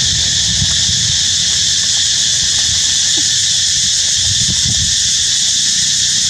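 A steady, shrill chorus of insects, such as cicadas, with irregular low rumbling underneath.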